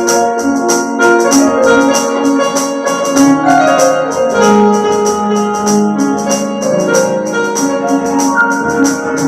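Electronic keyboard playing an instrumental interlude between sung lines of a Bengali folk song: a melody of held, organ-like notes over a steady beat of light percussion ticks.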